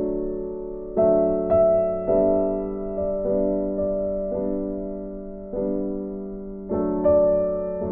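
Background music: slow, gentle piano, struck chords about once a second and left to ring and fade.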